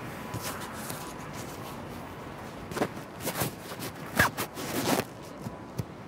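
A cluster of short rustling and clicking sounds over about two seconds, starting near the middle, over a faint steady background.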